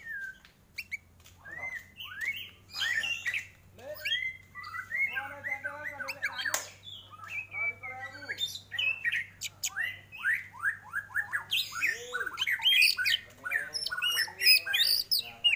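White-rumped shama (murai batu) singing a long, varied song of whistles, chirps, quick descending notes and harsh squawky calls with hardly a pause. A faint steady low hum runs underneath.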